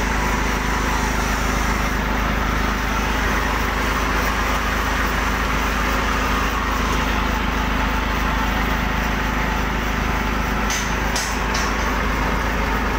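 Belt-driven farm machine running steadily, its V-belts and pulleys spinning with an even mechanical hum. Three short ticks come close together near the end.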